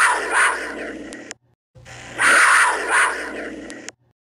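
Cougar calling: a harsh, rasping call in two pulses, each lasting about a second, heard twice with a short silent gap between, the same call repeating.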